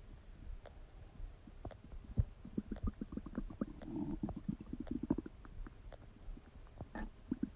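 A human stomach gurgling while digesting: a run of small pops, clicks and bubbling gurgles, busiest from about two to five seconds in, with another gurgle near the end.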